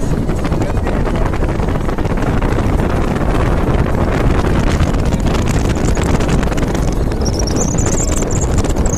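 Steady noise of a moving vehicle with wind buffeting the microphone, full of fine rattling, and a thin high whine rising in pitch about seven seconds in.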